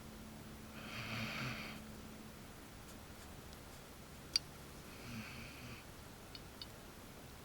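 Basset hound snoring: two slow, noisy breaths about four seconds apart, with a sharp click between them.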